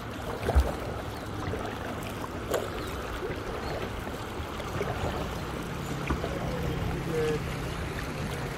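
Water splashing and lapping around a kayak as it is paddled along a river, with a single low thump about half a second in.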